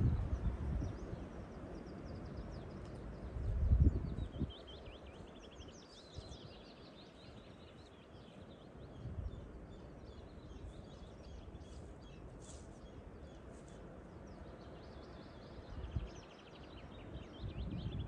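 Songbirds singing in repeated quick trills over a steady outdoor hush, while wind buffets the microphone in low rumbling gusts, the strongest about four seconds in.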